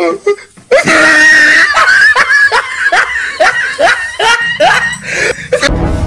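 A loud run of high-pitched whooping cries, about two or three a second, each sliding upward in pitch. A music track starts near the end.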